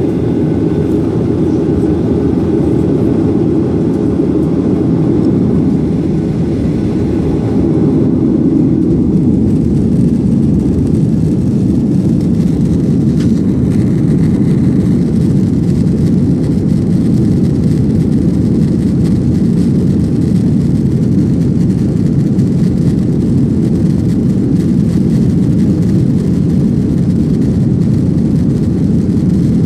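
Steady, loud jet-engine and airframe noise inside the cabin of a Boeing 737-800 during the takeoff run, coming from the CFM56-7B engines. The level edges up slightly about eight seconds in.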